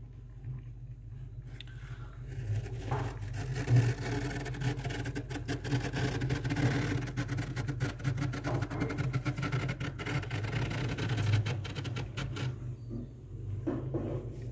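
Fingers scraping and raking soft frost off the inside walls of a freezer: a dense run of small crackling scrapes that builds about two seconds in and thins out near the end, over a steady low hum.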